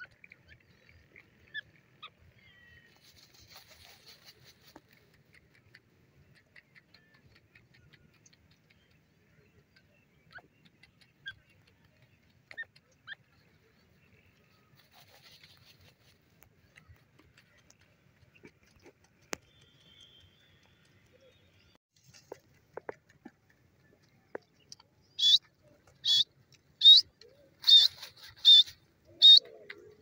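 Grey francolin scratching and dust-bathing in dry soil, with faint scattered scratches and ticks. Near the end a grey francolin gives six loud, shrill call notes in quick, even succession, under a second apart.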